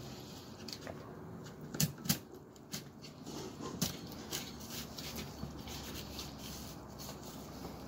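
Fillet knife ticking and scraping against the rib bones of a golden trevally as the fillet is cut free, a scatter of small sharp clicks, the loudest about two seconds in, over a steady background hiss.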